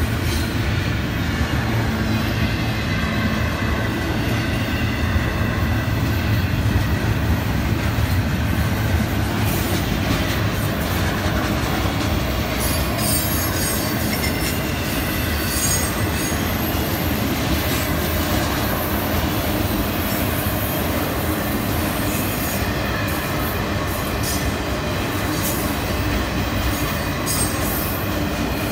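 Florida East Coast Railway freight cars rolling past with a steady rumble of steel wheels on rail. From about halfway through, high wheel squeal comes and goes over the rumble.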